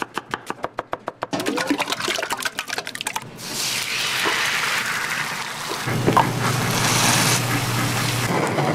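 A knife slicing an onion on a cutting board in quick, even strokes, about seven a second. About a third of the way in, the chopping gives way to egg batter sizzling steadily in a hot rectangular tamagoyaki pan.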